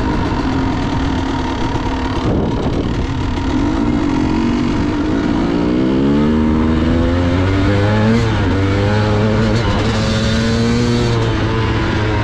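Dirt bike engine running under way. From about halfway through its pitch climbs with the throttle, dips briefly a couple of times and rises again.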